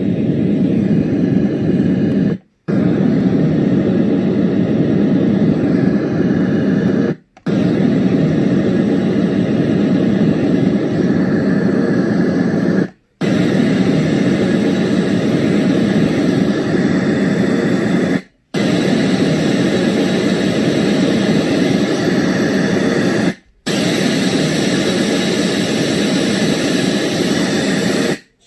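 Renpho sleep sound machine playing white noise, a steady low, full hiss. It cuts out briefly five times, about every five seconds, as it steps from one white noise setting to the next.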